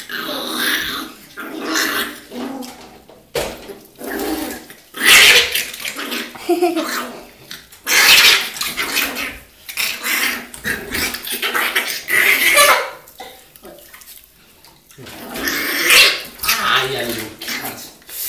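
Maltese terrier puppy growling and snarling in repeated short, loud bursts while water splashes in the bathtub: an angry reaction to being bathed.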